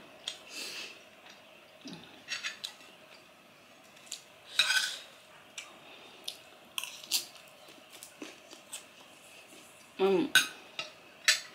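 Metal spoon and fork clinking and scraping against a ceramic plate while scooping rice, in scattered short clicks, with a brief vocal hum near the end.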